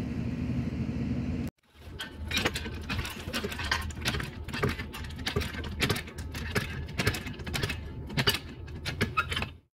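Red hydraulic floor jack being pumped by its handle under the front of a Club Car golf cart to lift it, a quick irregular series of clicks and clanks over a steady low hum. It starts after a brief cut about a second and a half in.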